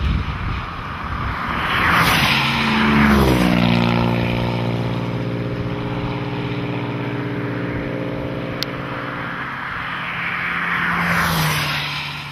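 Highway traffic going past close by: tyre and wind noise swelling and fading twice, with an engine note that drops in pitch as a vehicle goes by, then holds steady.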